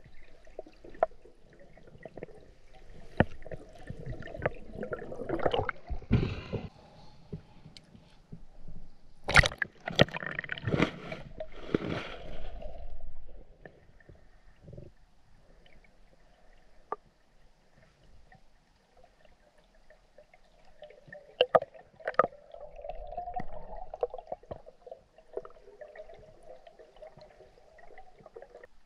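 Water sloshing and gurgling around a spearfisher's underwater camera, coming in irregular spells, the loudest about ten seconds in, with scattered sharp clicks between.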